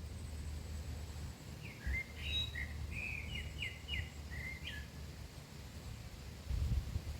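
A small songbird singing one short phrase of quick chirping notes, starting about a second and a half in and lasting about three seconds, over a low steady rumble.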